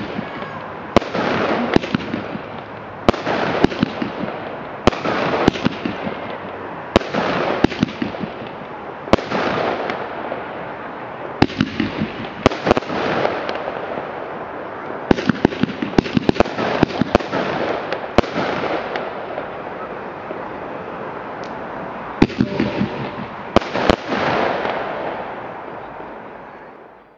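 Consumer fireworks battery firing shot after shot, roughly one every second or so: each a sharp bang followed by a hissing crackle as the burst glitters out. The firing tails off and fades near the end.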